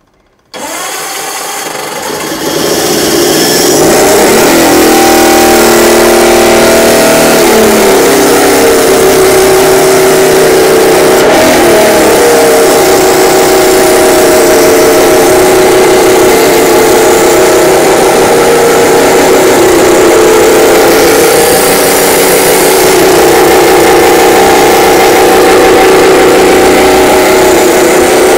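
A home-built, water-cooled five-cylinder radial two-stroke snowmobile engine fires up about half a second in and builds to full running within a couple of seconds. Its pitch rises and falls as it is revved over the next several seconds, then it settles into running steadily.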